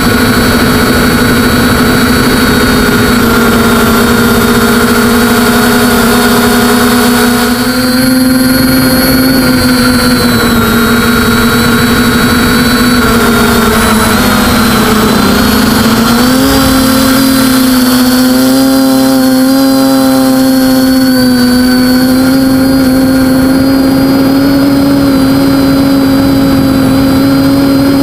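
TBS Discovery quadcopter's brushless motors and propellers whining in flight, heard through the onboard camera, the pitch wandering with throttle: it sags about halfway through, then steps back up and holds.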